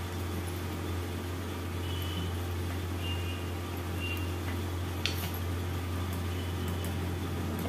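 Steady low electrical or fan-like hum, with a few faint light knocks and one sharper click about five seconds in as dough is rolled out with a wooden rolling pin on the counter.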